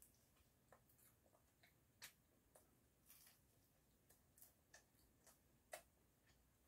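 Faint chewing of a bungeoppang, a fish-shaped pastry: soft, irregular mouth clicks over near silence, one a little louder near the end.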